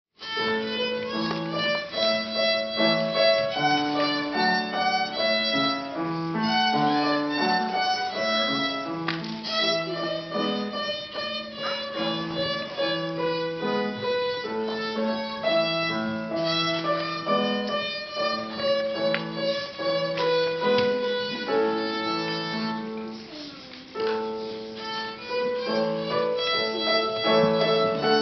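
Solo violin played by a child, a melody of bowed notes, accompanied by piano playing lower sustained notes, with a brief softer moment near the end.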